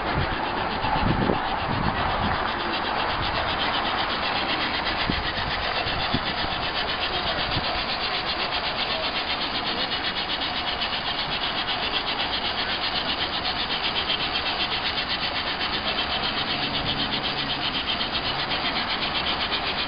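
Steam hissing from a home-built steam tractor with a wood-fired boiler, with a fast, even pulsing in the hiss, as the tractor is warmed up. A few low thumps come about a second in.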